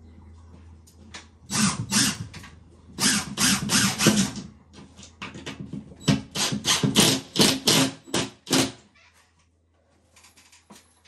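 Cordless impact driver hammering screws through a timber batten into the ceiling's roof trusses, in several bursts of rapid sharp strikes, stopping about nine seconds in.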